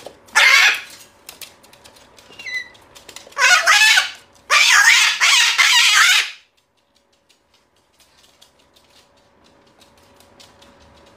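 Moluccan cockatoo screaming: three loud, harsh screeches in the first half, the last one held for about two seconds.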